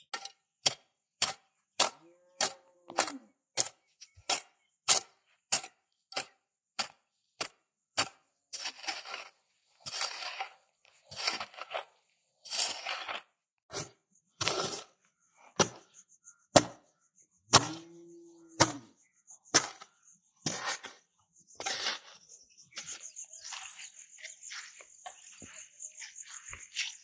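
A hoe chopping into dry, sandy soil in sharp, even strikes, a little under two a second. It gives way to longer scraping scoops of loose earth as the pit is dug out.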